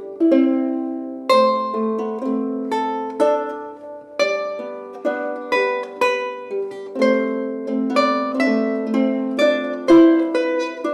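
Two small wooden harps and a lute playing a 15th-century polyphonic chanson together: plucked notes in several interweaving lines, each note starting sharply and ringing away.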